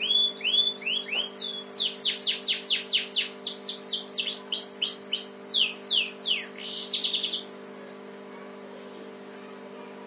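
Domestic canary singing in its cage, its song a fast run of short downward-sweeping chirps copied from the Eurasian tree sparrow's chirping. The song ends in a quick trill and stops about seven and a half seconds in, leaving a steady low hum.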